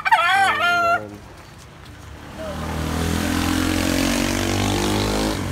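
A rooster crows once, about a second long, at the start. From about two and a half seconds in, a motor vehicle's engine and tyre hiss on a wet road build up and hold steady.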